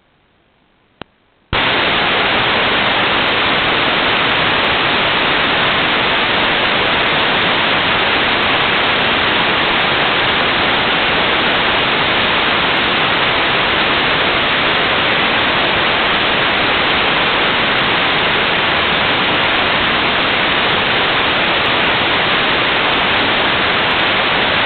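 Loud, steady static hiss from an analog 5.8 GHz FPV video receiver's audio channel, switching on suddenly just after a click about a second and a half in.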